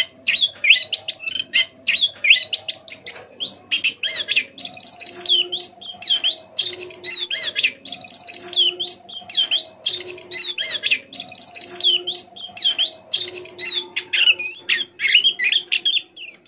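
White-eye (pleci) singing a fast, soft, chattering warble of quick high chirps and rising-and-falling whistles: a bird practising its song. Lower steady tones repeat beneath it about every second and a half, and the song cuts off suddenly at the end.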